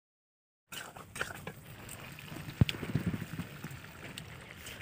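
Faint sounds of a curry simmering in a kadai over a wood-fired clay stove, with scattered small clicks and one sharper tick a little past halfway. The first moment is dead silent.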